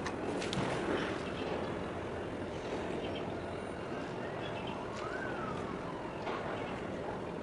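Steady harbour background noise of engines and traffic, with a few sharp knocks. A faint whistle rises and then falls about five seconds in.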